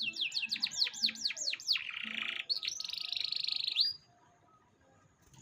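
Canary singing: a run of quick falling whistled notes, about six a second, then a lower buzzy trill and a fast high trill, stopping about four seconds in.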